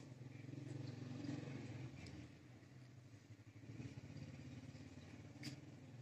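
A faint, steady low motor hum with a few short high clicks or chirps, the sharpest about five and a half seconds in.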